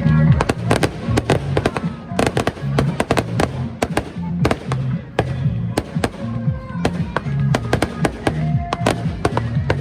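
Fireworks display going off: sharp bangs and crackling, several a second, over the music the show is set to.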